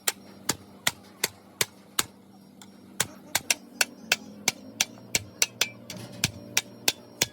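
Repeated sharp hammer strikes, about three a second, with a short pause about two seconds in.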